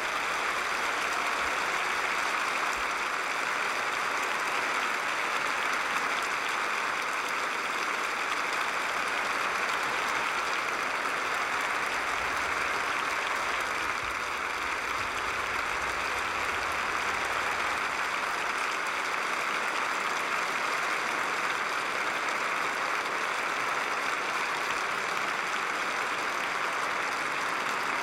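Large open-air concert audience applauding, a dense, even clapping that holds steady.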